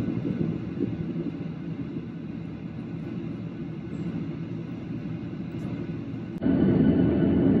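Steady low rumble of airliner jet engines during a takeoff run, jumping abruptly louder about six and a half seconds in.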